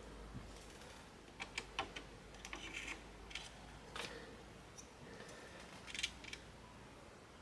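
Small plastic and metal clicks and taps of computer parts being handled and fitted during a PC build. A quick run of clicks comes about a second and a half in, more follow around three and four seconds, and the sharpest click is near six seconds.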